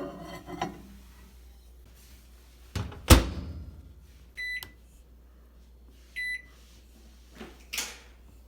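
Microwave oven being used: a loud thud of the door shutting about three seconds in, then two short beeps from its buttons, with a couple of softer knocks near the end.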